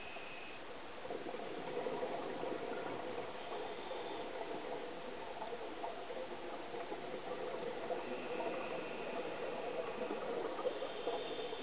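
Underwater ambience on a scuba dive: a steady, muffled crackling and bubbling, with faint high tones coming and going.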